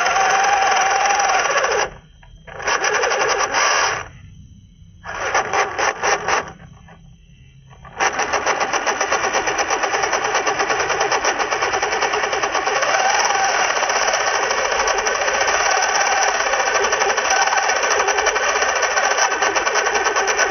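Small RC crawler's electric motor and gear train driven at full throttle with the wheels spinning in wet sand: a fast grinding clatter. It cuts out and starts again in short bursts over the first several seconds, then runs without a break from about eight seconds in. The sound of the crawler's motor pinion gear starting to break up under the strain.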